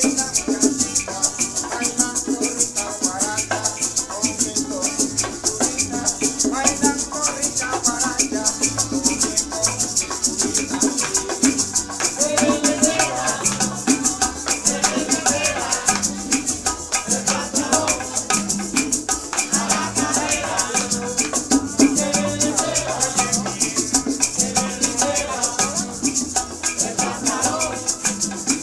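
Cuban music with maracas shaking in a steady fast rhythm under plucked strings playing a busy melody.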